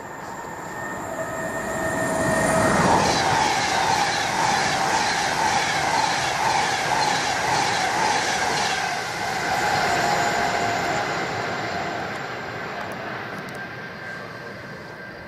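Class 390 Pendolino electric train passing at speed. The sound builds over the first few seconds into a loud rush with a rapid, rhythmic clatter of wheels over the rail joints, then fades away over the last few seconds.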